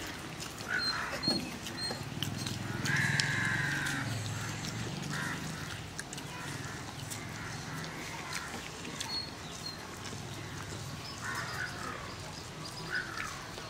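Animal calls: a few short cries and one longer call about three seconds in, over a faint outdoor background.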